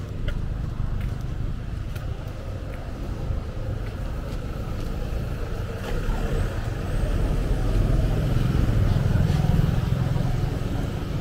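Street traffic: vehicle engines running past in a low, steady rumble that swells as a vehicle passes close, loudest about eight to ten seconds in.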